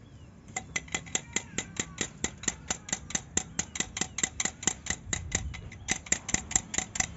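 Rapid, even metallic clinking, about six ringing strikes a second, as a steel bending bar knocks against the reinforcing bars at the foot of a rebar column cage while the bar ends are bent over. The clinking starts about half a second in and pauses briefly past the middle.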